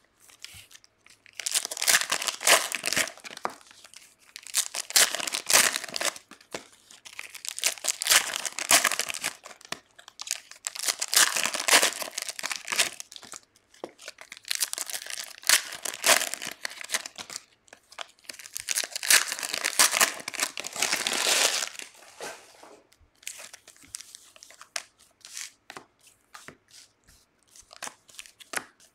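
Foil trading-card pack wrappers (Panini Chronicles soccer packs) being torn open and crinkled, in a run of loud crackling bursts. After about 22 seconds it drops to lighter rustles and clicks as the opened packs and cards are handled.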